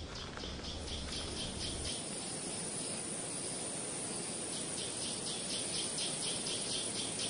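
Wildlife ambience: a high, rhythmic chirping at about five pulses a second, in two runs with a pause between, over a steady background hiss.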